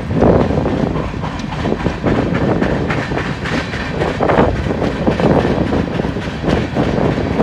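Freight train's covered hopper cars rolling past on the rails in a continuous rumble, with repeated clacks of steel wheels over the rail joints.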